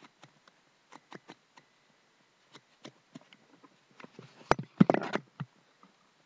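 Scattered light taps and clicks, then a brief cluster of loud knocks and rustling about four and a half seconds in.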